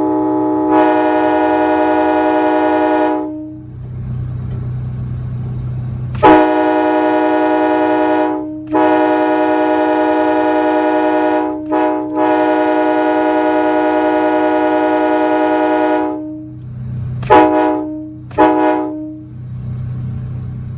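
Nathan AirChime K5HA five-chime train horn, a mutt built from sandcast and later-production bells, sounding its chord in long blasts: one ends about three seconds in, a long one from about six seconds is broken by two brief gaps, then two short toots near the end. A low steady hum fills the gaps between blasts.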